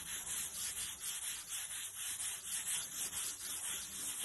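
Wet sanding fresh paint on a 1967 Volkswagen Beetle: abrasive paper rubbed back and forth over the panel in quick repeated strokes, flattening mottling out of the new paint.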